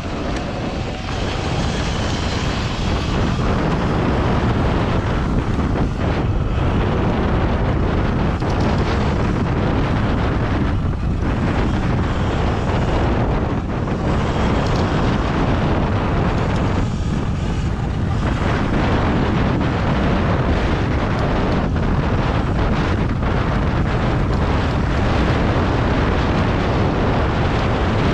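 Loud, steady wind noise buffeting the microphone while riding an electric dirt bike along a dirt trail, with a low rumble from the ride underneath.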